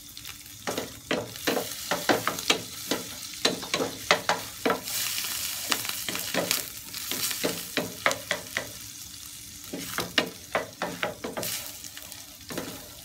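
Minced garlic and small dried shrimp sizzling in oil in a stainless steel frying pan. A wooden spatula scrapes and knocks against the pan many times as they are stir-fried, with a few short pauses, and is kept moving so the garlic does not burn.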